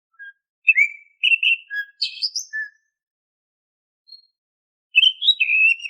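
Oriental magpie-robin (kacer) singing: a quick phrase of clear whistled notes jumping and sliding in pitch, a pause with one short high note, then a second whistled phrase near the end.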